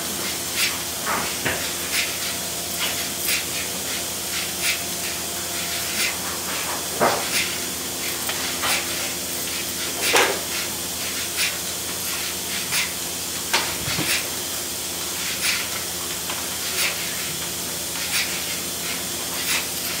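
Pipeline milking system running: a steady hiss and hum of the vacuum line, with milking-unit pulsators clicking and hissing at roughly two clicks a second.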